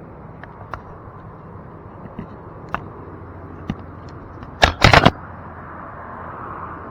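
A few sharp, scattered clicks over a steady hiss, then a quick cluster of loud knocks about two-thirds of the way through.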